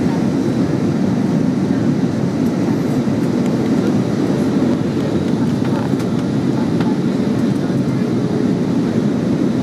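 Steady cabin noise inside an Airbus A320 on descent: an even, low rush of engine and airflow noise that holds the same level throughout.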